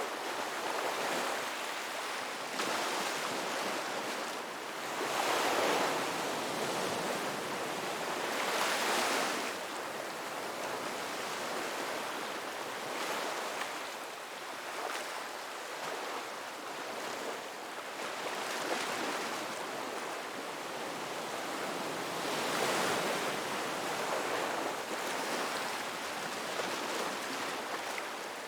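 Ocean waves breaking on a beach: a steady surf hiss that swells as each wave washes in, several times, the strongest swells a few seconds apart.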